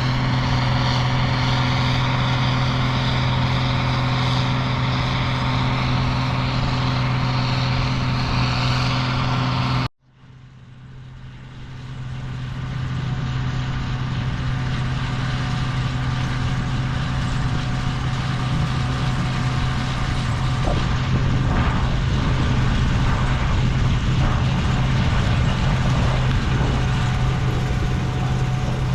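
Steady machine hum at a constant pitch; it cuts off abruptly about ten seconds in and fades back in over the next few seconds.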